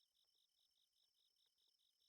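Very faint chorus of night insects: a regular high chirp, about six or seven a second, over a steady high trill.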